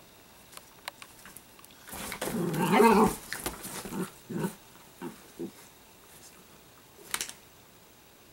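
Italian greyhounds play-wrestling, with play-growling: a loud growl lasting about a second a couple of seconds in, then several shorter growls and grunts, and a short sharp sound near the end.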